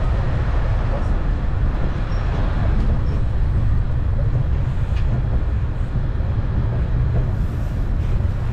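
Steady low rumble of a rubber-tyred road tourist train running, heard from on board.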